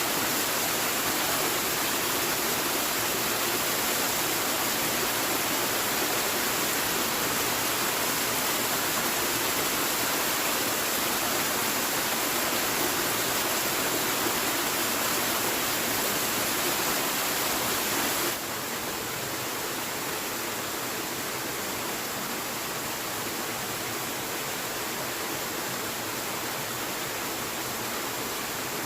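Steady hiss of rushing or falling water, even and unbroken; it drops abruptly to a slightly quieter level about eighteen seconds in.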